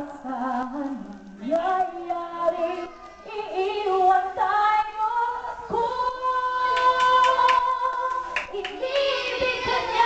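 A woman sings a slow ballad into a handheld microphone over a PA. About six seconds in she holds one long, steady note for roughly three seconds.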